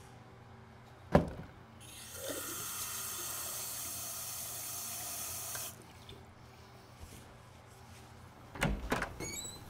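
A tap running into a washroom sink for about four seconds, then cut off abruptly. A single sharp knock, the loudest sound, comes shortly before the water starts, and a couple of thumps follow near the end.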